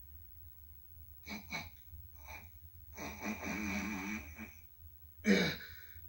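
A puppet bear character's voice sniffing hard through a clogged nose: a few short sniffs, then a long, strained, wheezy sniff, and a louder snort near the end. It plays through a TV speaker with a steady low hum underneath.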